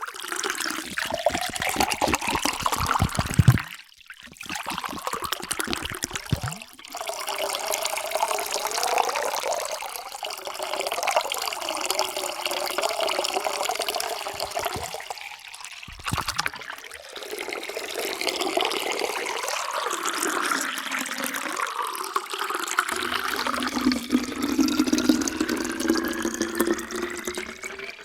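Water pouring steadily into a container, in several separate pours with short breaks between them. In the last few seconds a ringing tone rises in pitch as the vessel fills.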